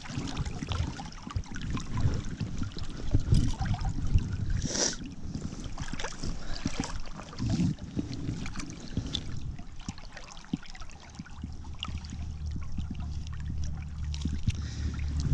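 Stream water running and splashing, with a few sharp knocks and a low rumble underneath.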